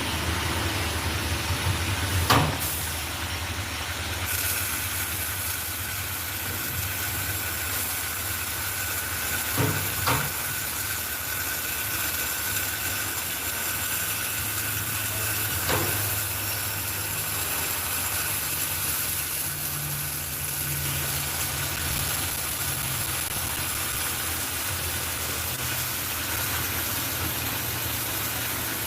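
Steady machine hum with hiss, broken by a few sharp knocks.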